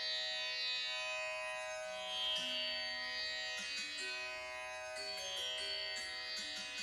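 Instrumental background music in an Indian classical style: short plucked string notes over a steady held drone.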